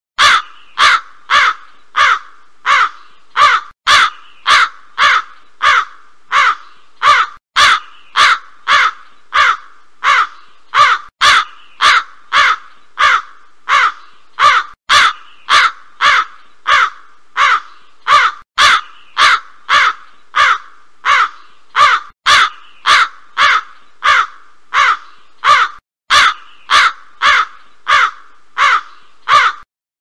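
Crow cawing over and over as a ringtone, harsh calls about one and a half a second. The recording loops about every four seconds, with a brief gap between repeats.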